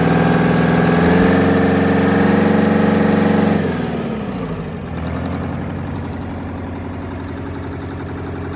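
Detroit Diesel 8V92 two-stroke V8 marine diesel running at raised revs, its pitch edging up about a second in. About three and a half seconds in the revs drop and it settles to a steady idle.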